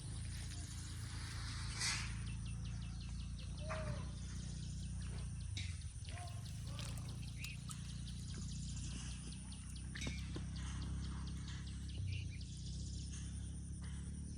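Outdoor ambience: a steady low hum with faint bird chirps and scattered small clicks.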